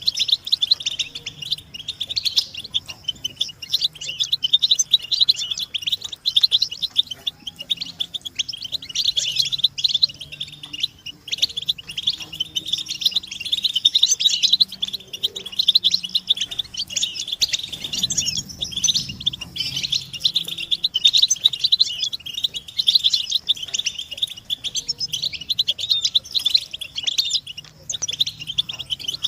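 Several European goldfinches twittering together in a dense, unbroken chatter of rapid high chirps and trills. These are the excited mating and readiness calls of the goldfinch.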